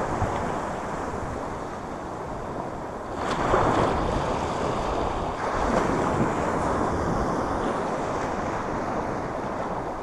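Small sea waves breaking and washing close to the microphone, with wind noise on the microphone; the surf swells louder about three seconds in and again around six seconds.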